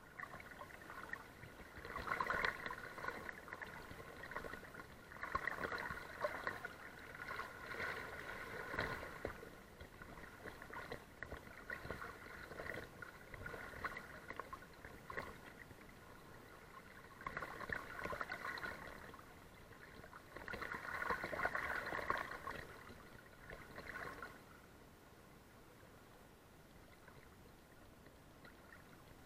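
River water sloshing and splashing against a camera held at the surface of a fast-flowing river, in uneven surges a few seconds long. It settles to a faint steady rush for the last few seconds.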